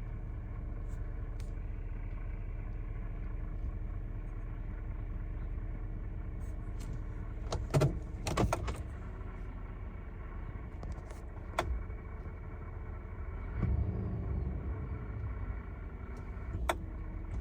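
A 2024 Chevrolet Silverado 2500HD's 6.6 L gas engine and Allison 10-speed transmission running steadily with an even hum and a grinding noise, as heard from the cab. The owner likens it to a bearing spinning with grime in it and places it where the engine and transmission meet; the dealer calls it normal for this transmission. A few sharp clicks come through, one about eight seconds in.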